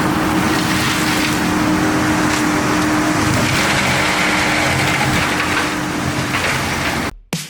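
Kubota SVL97 tracked skid steer running steadily with its forestry mulching head: dense engine and machine noise with a steady hum. It cuts off abruptly about seven seconds in, where electronic music begins.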